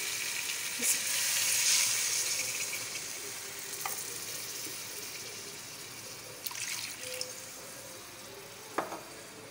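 Water poured into a hot karahi of fried masala, chicken and peas, hissing and sizzling as it hits the oil. The hiss is loudest in the first two seconds, then dies away steadily as the pan cools, with a few light knocks along the way.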